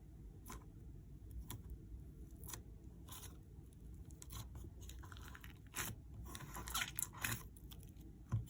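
Thick slime being squeezed and pulled by hand: faint, irregular little clicks, crackles and squelches, a bit louder in the second half.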